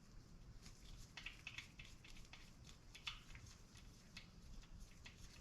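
Near silence with a few faint, light clicks and taps of metal parts being handled.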